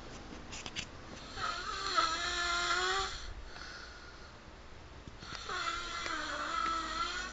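Snoring: two long snores with a wavering, whistling pitch, one starting about a second in and the other past the halfway point.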